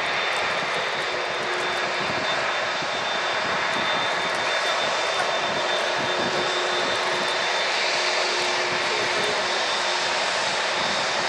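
Turbofan engines of taxiing jet airliners running at low power: a steady rush of engine noise with a faint constant high whine.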